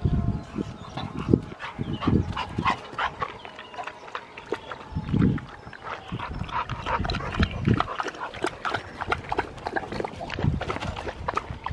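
American bully dogs play-wrestling, with dog grunts and vocal noises mixed with many quick, irregular scuffling sounds and a few low thumps.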